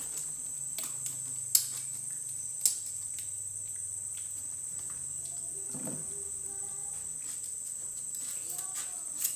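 Steady high chirring of crickets, with a metal spoon clinking sharply against a ceramic plate three times while rice porridge is scooped and eaten.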